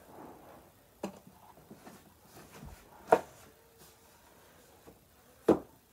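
Three short knocks of handling noise in a quiet room, about one, three and five and a half seconds in, the middle one the loudest.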